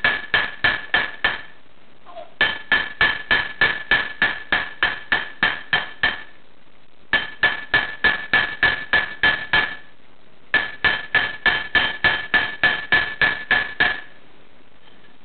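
Hammer striking metal in quick, even blows while forging a tin ring, each blow ringing with a clear metallic tone. The blows come about four to five a second in four runs separated by short pauses, and stop about 14 seconds in.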